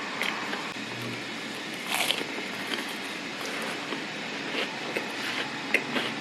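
Someone biting and chewing a flaky croissant close to the microphone: scattered small crackles and crunches of the crisp pastry over a steady background hiss.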